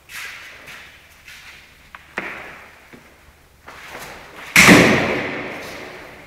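Several sharp knocks echoing around an empty tiled room: one at the start, one about two seconds in, and a much louder impact about four and a half seconds in that rings on for more than a second.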